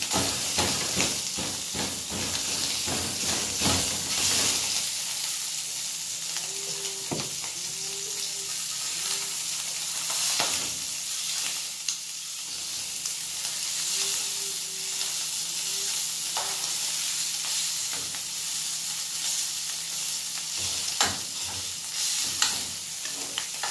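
Pieces of linguiça sausage frying in oil in a pan, a steady sizzle. Stirring scrapes and clicks against the pan for the first few seconds, with a few single knocks later on.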